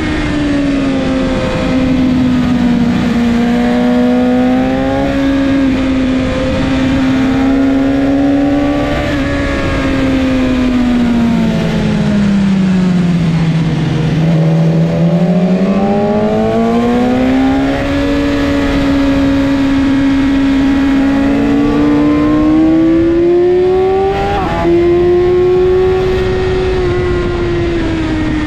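BMW S1000RR inline-four sportbike engine running hard under the rider, with wind rush. Its pitch falls in the first couple of seconds, drops to its lowest about halfway through as the bike slows for a tight corner, then climbs steadily as it accelerates out.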